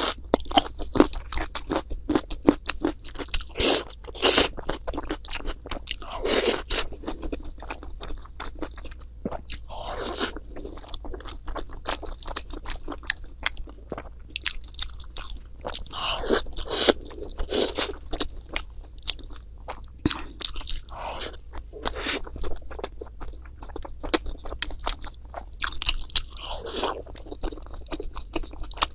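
Close-miked eating: a person chewing and biting crunchy food, with a steady run of small clicks and a louder bite every few seconds.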